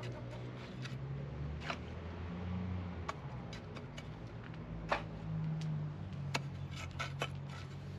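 Low engine hum whose pitch shifts up and down, with scattered sharp clicks and scrapes close by, the loudest about five seconds in.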